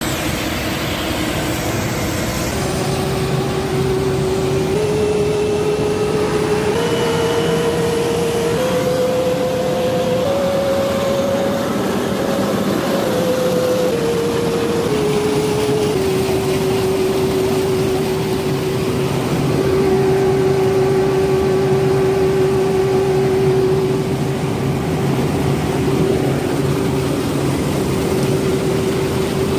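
Case IH 2688 axial-flow rotary combine harvester running: a steady loud machine drone and whine whose pitch steps up in several stages over about ten seconds, then steps back down and holds steady.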